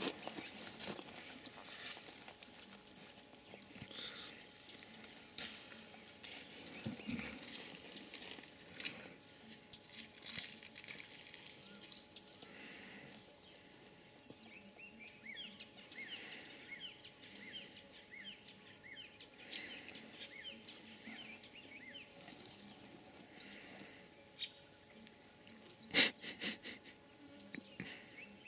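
Bush ambience: a steady high insect drone with scattered small bird chirps. About two seconds before the end comes a quick run of sharp cracks, the loudest sound.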